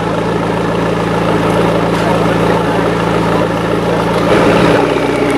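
McLaren 650S Spider's 3.8-litre twin-turbo V8 idling steadily, its low tone shifting briefly around four to five seconds in.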